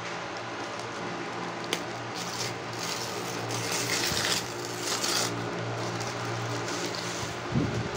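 Paper courier mailer and plastic wrapping rustling and crinkling in bursts as hands handle the package, with a click and a few soft thumps, over a steady low hum.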